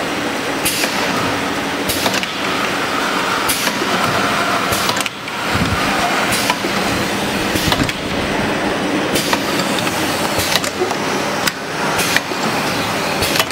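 Semi-automatic rotary tube filling and sealing machine running, with steady mechanical noise and a short sharp stroke from its pneumatic heads about every one and a half seconds.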